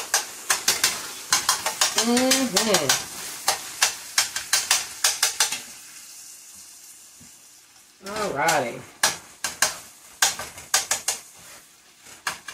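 Metal spoon scraping and clinking against a cast iron skillet as ground beef is stirred, over a steady sizzle of the browning meat. The stirring pauses for a couple of seconds about halfway through, leaving only the sizzle, then starts again.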